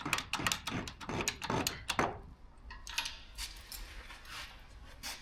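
Hand tools working on a car's hub and trailing arm: quick metallic clicking, about six a second, for the first two seconds, then a few scattered light metal clinks.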